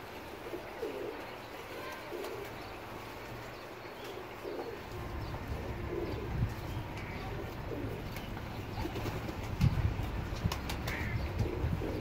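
A flock of domestic pigeons cooing over and over while they feed, with occasional wing flaps and sharp clicks. A low rumble comes in about five seconds in.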